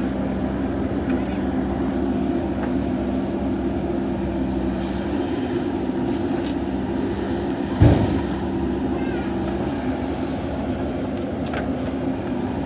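JCB 3DX backhoe loader's diesel engine running steadily, with one sharp thump a little past halfway through.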